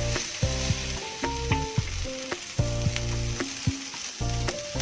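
Onion and tomato frying in oil in a pan, with a steady sizzle, while a spatula stirs and clicks sharply against the pan several times.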